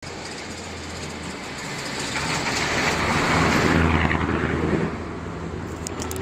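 Bus engine running with a low, steady drone under road noise that swells to its loudest about three and a half seconds in, then eases off.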